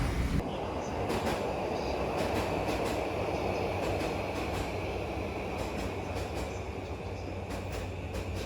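Train running on its rails: a steady rumble with a constant high whine over it.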